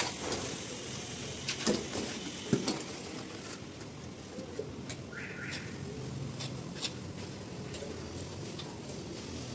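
Light knocks and clicks from handling PVC pipe and a can of PVC solvent cement, sharpest twice in the first three seconds, over a steady background hum. Two short chirps come about five seconds in.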